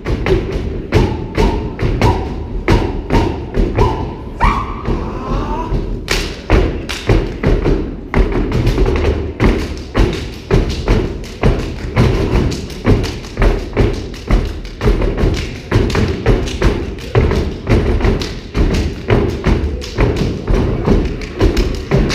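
Step team stomping and clapping in unison on a raised stage platform: a fast, steady rhythm of sharp thuds and claps.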